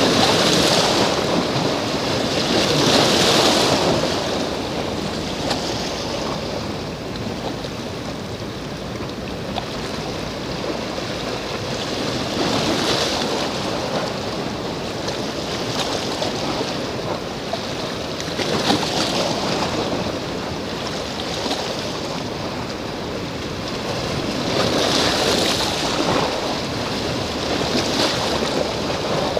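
Small sea waves washing on the shore, a hissing wash that swells and falls back every few seconds, over a steady rush of wind.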